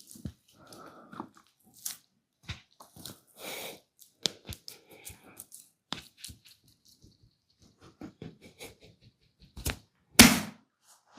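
Hands working over skin during a massage: a scatter of short slaps, rubs and cracks, with one louder impact about ten seconds in.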